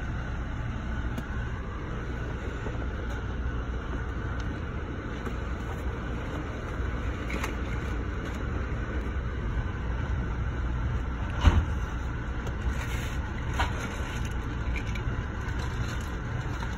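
Steady low rumble of an Amtrak passenger car rolling along the rails, heard from inside the coach. Scattered light clicks and knocks run through it, with one sharp knock a little past the middle.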